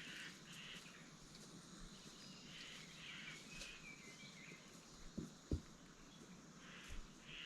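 Faint outdoor ambience with distant bird calls, and two soft thumps about five seconds in, likely footsteps.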